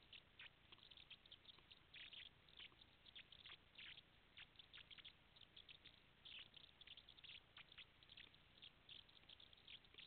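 Near silence, with faint, irregular crackling ticks, several a second.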